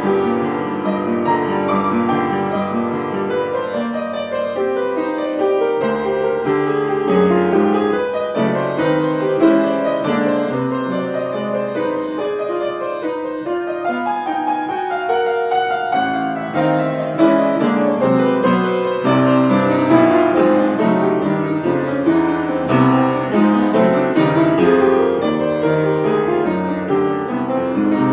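Solo piano improvisation mixing jazz, romantic and classical elements: continuous chords and melodic lines played without a break.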